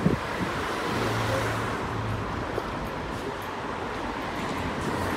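City street traffic noise: a steady wash of car sound from the road alongside, with a low engine hum about a second in. A single knock right at the start is the loudest moment.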